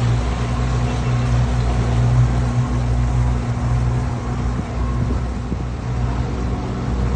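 A motor engine running at a steady speed, a continuous low drone with a steady hum and no change in pitch.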